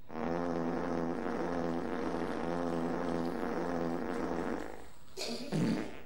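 A long, drawn-out fart: a steady low buzzing tone, slightly wavering in pitch, lasting about four and a half seconds. It is followed a little after five seconds in by a short, louder, rougher burst.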